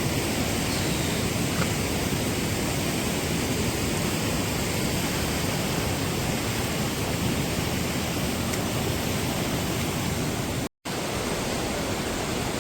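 Steady rushing of water from falls and streams, cut off for a split second near the end.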